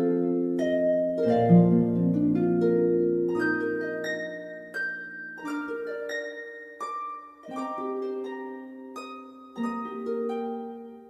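Calm background music of plucked-string notes in a slow melody, each note ringing out and fading, with brief pauses between phrases.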